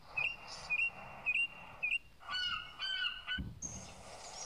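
Bird calls: four short, high chirps about half a second apart, then a burst of more complex calls a little after the second mark.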